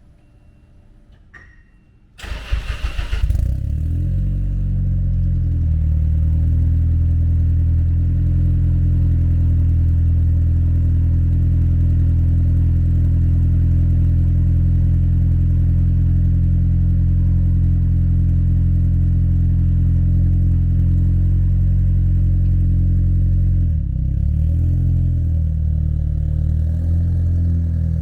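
A car engine cranks briefly about two seconds in, catches, and then idles steadily. The idle shifts briefly near the end.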